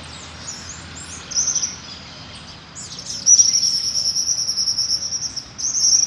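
Double-collared seedeater (coleiro) singing: a short high phrase about a second in, then a long, rapid, high-pitched trill from about three seconds in, ending with another short phrase.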